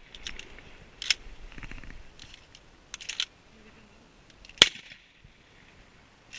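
Shotgun shots: one loud shot about four and a half seconds in, with fainter sharp reports about a second in and a quick cluster around three seconds in.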